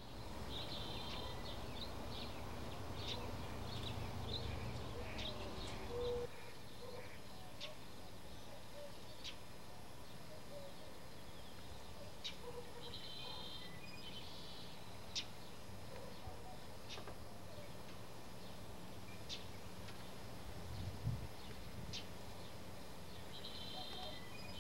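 Quiet desert outdoor ambience with small birds calling: scattered high chirps and a few short, rapid trills. A low rumble in the first six seconds cuts off suddenly.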